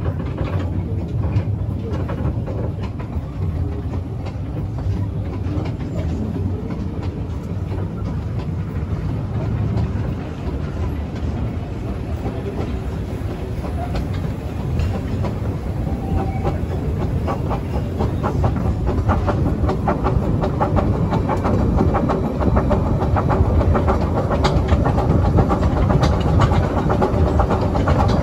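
Kerr Stuart Wren 0-4-0 saddle tank steam locomotive running along the track, with the wheels clicking over rail joints, growing louder through the second half.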